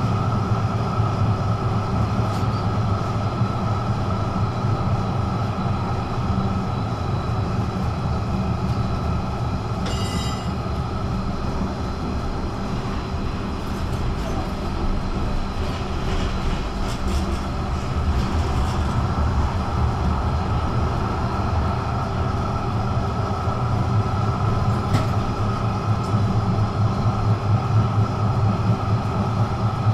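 Duewag GT8 articulated tram running: a steady electric drone with rolling wheel noise, easing off in the middle and growing louder again near the end. A brief high ringing comes about ten seconds in, and a few faint clicks follow later.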